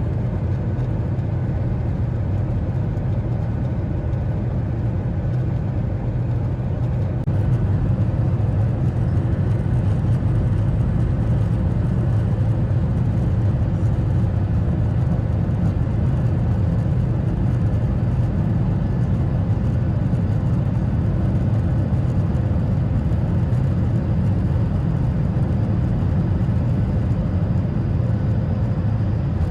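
Boeing 737 cabin noise: the jet engines and airflow as a steady low rumble, which steps up in loudness about seven seconds in and holds there.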